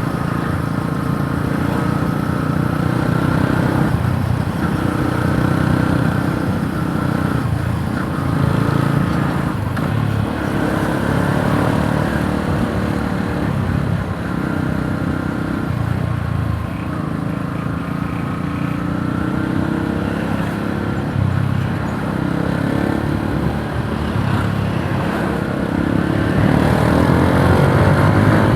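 Yamaha YTX 125 cafe racer's single-cylinder four-stroke engine running under way, its note rising and falling with the throttle several times.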